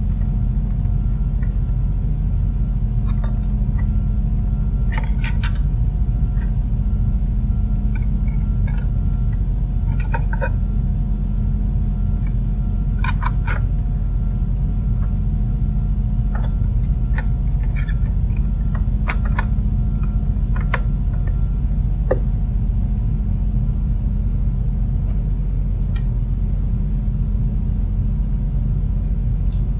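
Scattered light clicks and taps of a plastic LED bulb housing and its circuit board being handled and pressed into place, over a steady low rumble with a faint hum.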